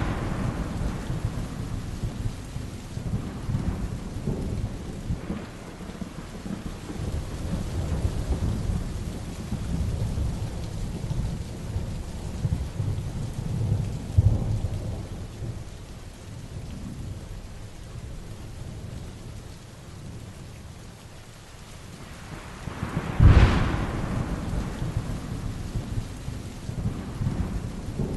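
Heavy rain falling steadily through a thunderstorm, with thunder rumbling low through the first half and swelling about halfway in. About 23 seconds in, a sharp thunderclap cracks loudest of all and rolls on into a rumble.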